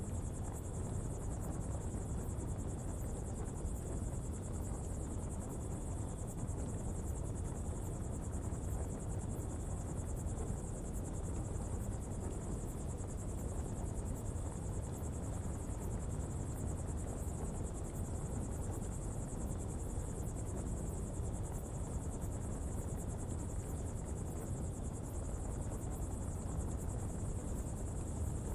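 Steady low rumble of a coal pottery fire burning in the open, with a constant high insect drone above it.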